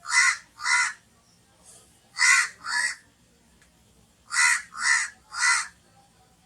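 Crow cawing: seven short, harsh caws in groups of two, two and three, the caws within a group about half a second apart.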